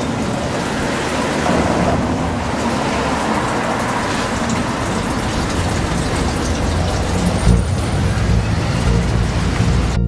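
A loud, steady wash of noise with a low hum beneath it, growing slightly stronger in the low end near the end.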